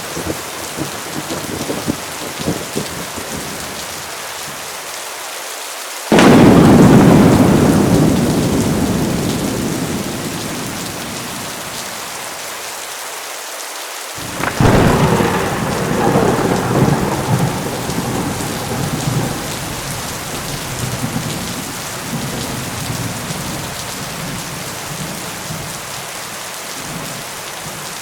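Heavy rain falling steadily, with two claps of thunder. A sudden loud crack about six seconds in rumbles away over several seconds. A second clap about fourteen seconds in rolls on with several swells before fading back into the rain.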